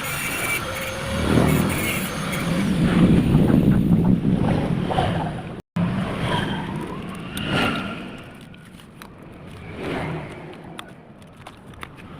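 Steady low mechanical running noise. After a sudden cut it gives way to quieter, scattered metallic clicks and knocks, typical of hand tools and parts being handled while a motorcycle engine is assembled.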